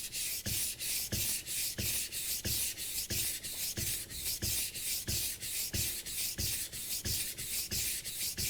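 Steel kitchen knife blade being drawn back and forth on a wet whetstone in quick, even rasping strokes, nearly three a second, sharpening the inside of the edge.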